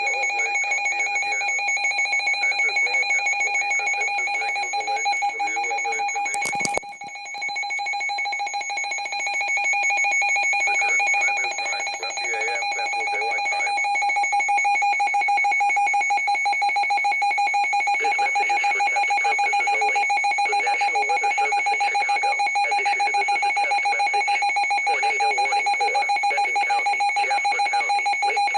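Emergency Alert System two-tone attention signal: a harsh, steady electronic alert tone that sounds without a break, with a sharp click about seven seconds in and a brief drop in level after it.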